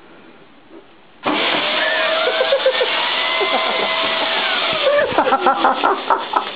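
Vacuum cleaner switched on suddenly about a second in and running loudly and steadily; in the last second and a half the sound turns choppy and uneven.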